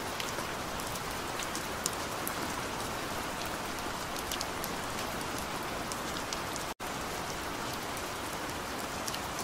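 Steady rain, an even hiss with scattered ticks of drops, cutting out for an instant about two-thirds of the way through.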